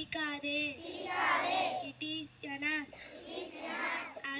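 A girl's voice chanting a prayer into a microphone in short held phrases on a fairly steady pitch, with a breathier stretch between phrases.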